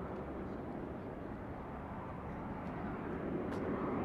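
Bombardier Global 7500 business jet on final approach, its twin GE Passport turbofans giving a steady rushing jet noise that grows slightly louder near the end.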